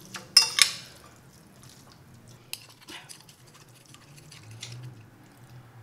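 Metal fork and spoon scraping and clinking against a ceramic plate while twirling noodles: two sharp scrapes in the first second, then a few light clicks.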